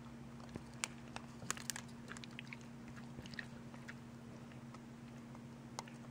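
A dog chewing and crunching a pencil: irregular sharp cracks and crunches, most of them bunched in the first half and one more near the end.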